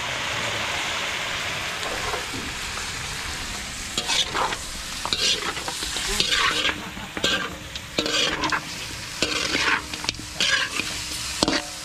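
Softshell turtle meat sizzling as it is stir-fried in a large metal wok. From about four seconds in, a metal spatula scrapes and turns the meat against the pan in repeated short strokes.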